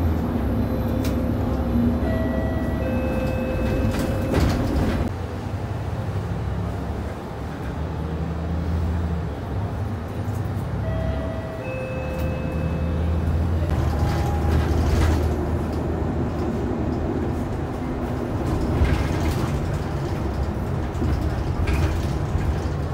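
Inside a moving city bus: the steady low rumble of the engine and road noise. Twice, about nine seconds apart, a short run of electronic tones steps down in pitch.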